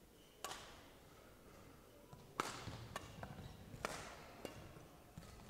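Badminton rally: about six sharp racket strikes on the shuttlecock, spaced roughly a second or so apart, each ringing briefly in the sports hall, the loudest about two and a half seconds in.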